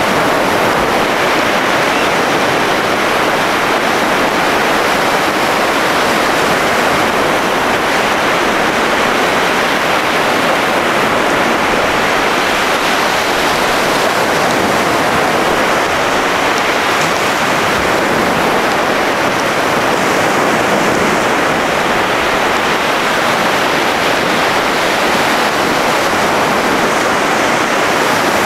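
Ocean surf breaking and washing up the beach, heard as a steady, even rush of water.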